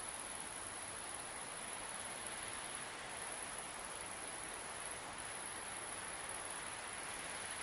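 Recorded nature ambience: a steady, even rush of wind-like noise with a continuous high-pitched insect chorus, like crickets, running over it without change.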